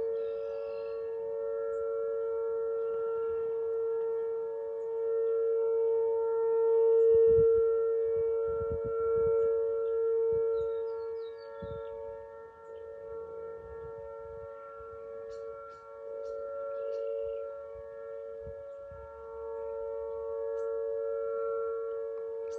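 Outdoor tornado warning siren sounding a steady, unwavering tone for a tornado drill, not a real warning. Its loudness swells to a peak, fades away in the middle, and rises again near the end.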